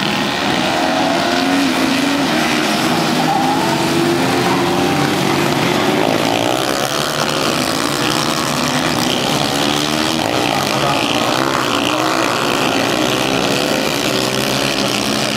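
A pack of supermoto racing motorcycles on track, several engines revving up and falling off at once in overlapping pitches as the bikes take the corners.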